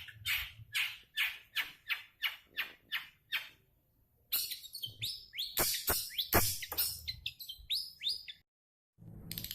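Long-tailed shrike (cendet) giving a run of harsh, evenly repeated calls, about two or three a second, then after a short pause a fast, varied chattering song. The sound cuts off abruptly near the end, and rapid repeated calls start again just after.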